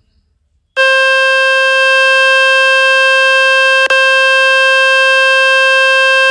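Loud, steady buzzing water-ejection tone from the Fix My Speaker website, played through a Samsung Galaxy A06 to shake dust and water out of its loudspeaker. It starts about a second in and has a very brief break a little past halfway.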